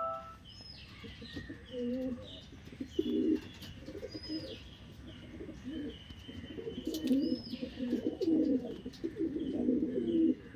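Domestic pigeons cooing in repeated low bursts, busier in the second half. Faint high chirps recur every couple of seconds behind them.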